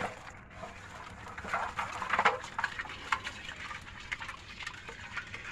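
Small live fish flapping and splashing as they are shaken out of a ring net into a pot of water: a run of irregular wet slaps and patters, busiest about two seconds in.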